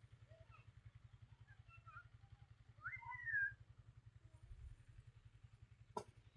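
Faint scattered animal chirps and one louder rising-and-falling call about three seconds in, over a low steady pulsing hum. A sharp click comes near the end.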